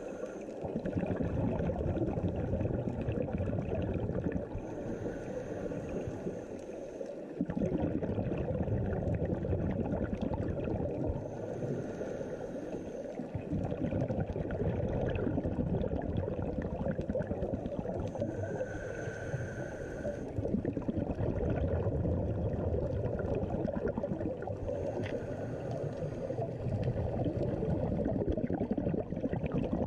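Scuba breathing through a regulator, heard underwater: long bubbling rushes of exhaled bubbles, with a brief high hiss of inhalation between them every six to seven seconds.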